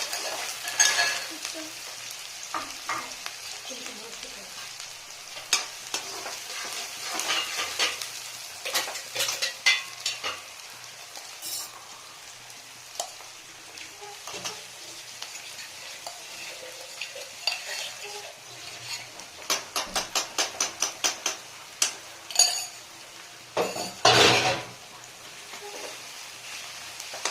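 Chicken sizzling as it fries in a pan, stirred with a spatula that clicks and scrapes against the pan over and over. A quick run of taps comes about two-thirds of the way in, and a louder burst of stirring near the end.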